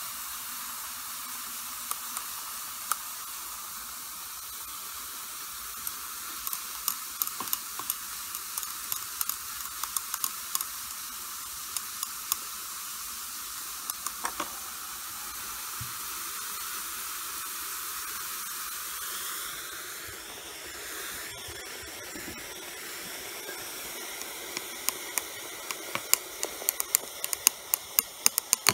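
Fizzing and hissing of a reaction mixture in a glass beaker, the aluminium-in-caustic-soda step of extracting mercury from cinnabar, with a glass stirring rod clicking against the glass now and then. Near the end the fizzing turns into a fast run of sharp crackling pops.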